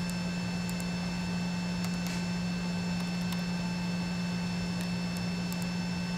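Steady low machine hum with a few faint high steady whines above it, and a handful of soft clicks from keys on the controller's keyboard.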